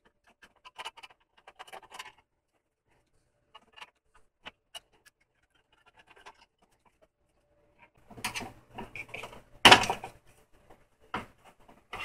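Hands working on a Dell Optiplex 330's CPU heatsink and plastic shroud: scattered light clicks and scrapes, then, from about eight seconds in, a run of louder clunks and scraping as the stiff heatsink is worked loose and lifted off, with the loudest knock near ten seconds.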